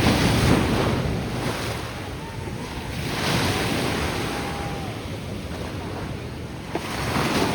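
Ocean surf breaking and washing ashore, the rush of water swelling and easing about every three to four seconds, with wind on the microphone.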